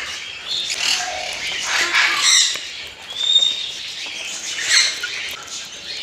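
Parrots squawking: harsh calls about a second in, around two seconds and again near five seconds, with a short thin whistled note between them.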